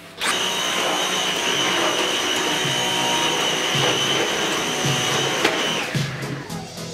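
Cordless stick vacuum cleaner switching on and running with a steady high-pitched whine, then cutting off about six seconds in.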